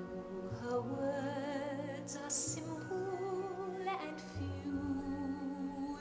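Slow, gentle ballad playing: a woman's voice sings long held notes with vibrato over soft accompaniment.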